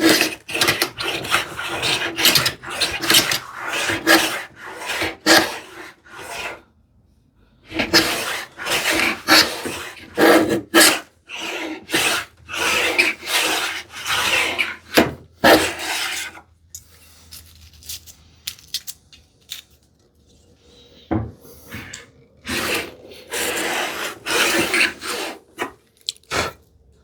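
Stanley 50 plough plane taking repeated short passes along a wooden strip, the iron scraping and shaving as it cuts a groove. The strokes come in runs with two pauses, the longer one in the middle of the stretch.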